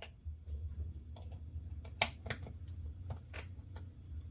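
Small metal parts of a vintage Pflueger Supreme baitcasting reel clicking and tapping as they are handled and fitted together during reassembly, a handful of sharp clicks with the loudest about two seconds in, over a steady low hum.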